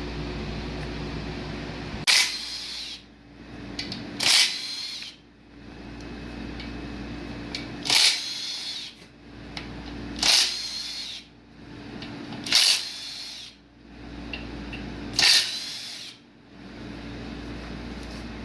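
A power tool run in six short bursts of about half a second each, a few seconds apart, loosening bolts on a 2.0 L turbo four-cylinder engine during teardown, over a steady low hum.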